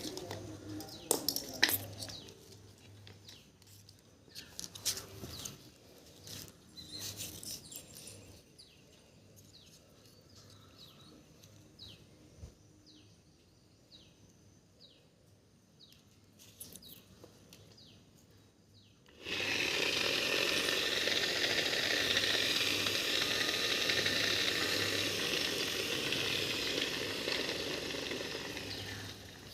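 Electric grinder running on a 12 V, 18 A supply: it starts suddenly about two-thirds of the way in and runs steadily, easing off slightly near the end. Before it starts there are scattered clicks and handling knocks, with birds chirping.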